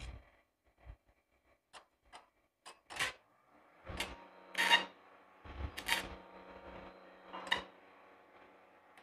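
Stick-welding (SMAW) electrode being scratched and tapped against a steel plate to strike an arc: several clicks and scrapes, then short crackling bursts of arc about three, four and a half, six and seven and a half seconds in. The arc keeps dying as the rod sticks to the plate, and a steady buzz runs under it from about four seconds on.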